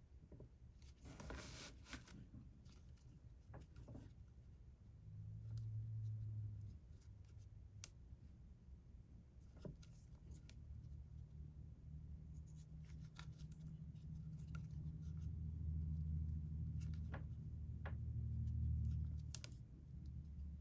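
Faint rustling and small clicks of a crochet hook working yarn, over a low hum that swells twice.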